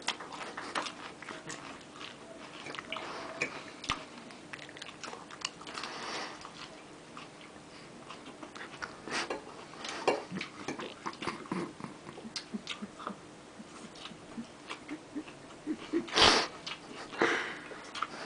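Eating: irregular chewing and biting, with many small clicks and crunches, and a louder noisy burst about sixteen seconds in.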